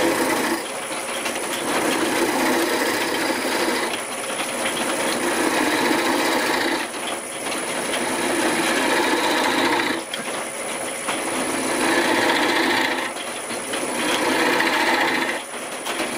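Turning chisel cutting into a spinning wooden bowl blank on a lathe, turning away the centre nub: a rough, continuous cutting sound in passes several seconds long, with brief dips between them as the tool eases off.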